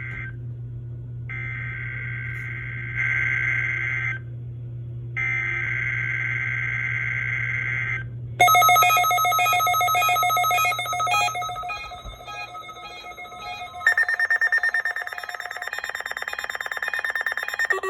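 NOAA Weather Radio weekly test signal: buzzy digital data bursts of the SAME header, three of them separated by short silences. About eight seconds in they give way to a harsher, rapidly pulsing electronic alert tone that changes pitch about fourteen seconds in. A low hum sits under the first part.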